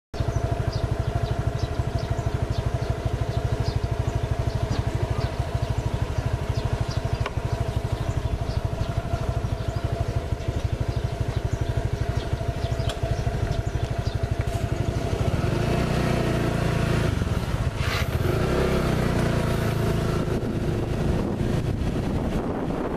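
Small motorcycle engine running with a steady, rapid putter. From about fifteen seconds in it gets louder and rougher, with rushing wind and road noise.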